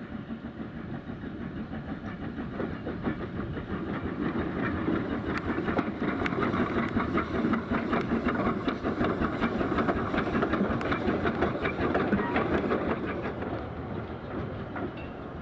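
Small narrow-gauge steam locomotive running slowly past with its carriages, steam hissing from around the cylinders and wheels clicking over the rail joints. It grows louder as it nears, is loudest about halfway through, and fades near the end.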